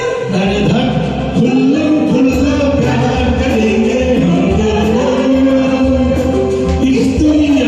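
Bollywood film duet sung over a backing track: a voice singing the melody over a steady bass beat.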